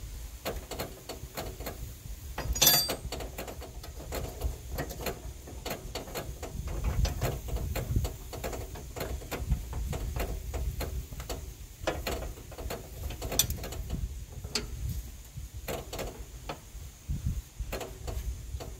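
Hand ratchet wrench clicking in short runs on the cab-suspension bolts, with a sharp ringing metal clank about three seconds in.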